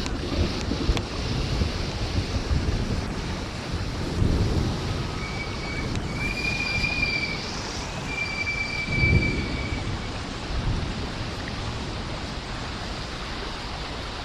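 Steady hiss of heavy rain, with gusts of wind buffeting the microphone twice. Three short, high whistling tones sound in the middle.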